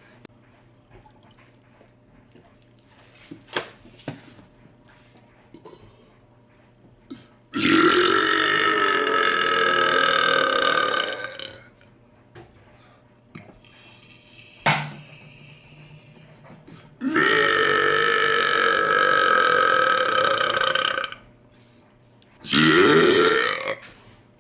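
A man belching loudly: two long belches of about four seconds each, about 8 and 17 seconds in, and a shorter one near the end, with a few faint clicks in between.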